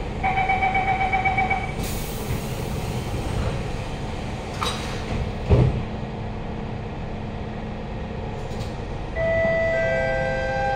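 Inside a Siemens C651 metro carriage: the door-closing warning beeps pulse for a second and a half, then a hiss as the doors shut and a single thump about five and a half seconds in. Near the end the traction motors start an electric whine in several steady tones as the train begins to move off.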